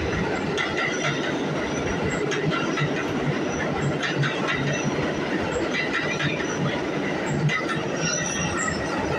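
New York City subway train moving past along the platform: a steady loud rumble of steel wheels on the rails, with clattering over the rail joints and a thin, high wheel squeal over it.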